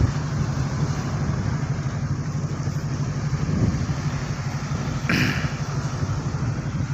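Tugboat's diesel machinery running with a steady low drone and an even fast pulse, heard from on deck. A brief brighter noise cuts in about five seconds in.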